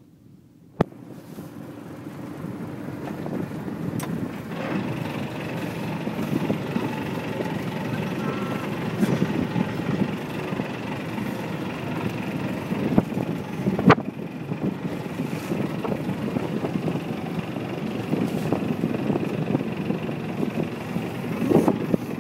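Wind on the microphone and water rushing along a sailing reed boat, a steady noise that builds over the first few seconds, with a sharp knock about 14 seconds in.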